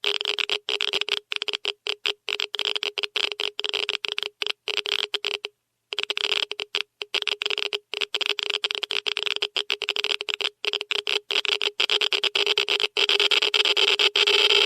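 Geiger counter clicking very rapidly, the clicks so dense that they run together into a crackle, with a brief pause about five and a half seconds in. Near the end the clicking grows louder and almost continuous: a high count rate, a sign of strong radiation.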